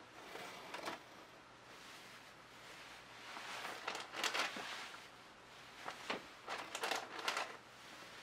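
Rustling and light handling noise in three short bursts, as gloved hands tilt and handle the wet canvas over plastic sheeting.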